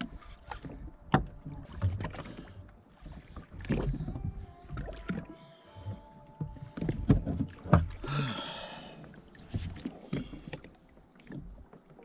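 Small boat at anchor: irregular knocks and bumps on the hull, with a few short creaks and squeaks.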